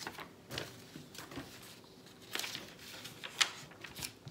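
A paper booklet being handled and its page turned: a string of short, soft rustles and light taps, about seven of them.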